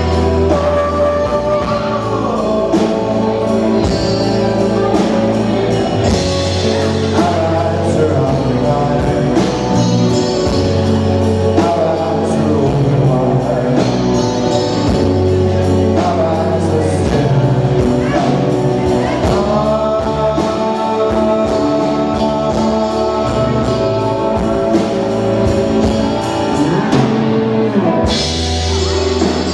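Live rock band playing an original song: a man singing lead over a steady drum beat, bass, electric guitar and keyboards.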